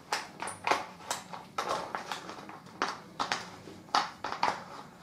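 Irregular sharp plastic clicks and knocks, about three a second, as the cap of a bleach bottle is worked open.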